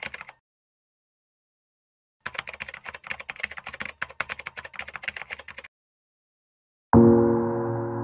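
Rapid keyboard typing clicks, a sound effect for on-screen text being typed out, in two runs with about two seconds of silence between them. About a second before the end, a loud sustained piano chord starts the intro music.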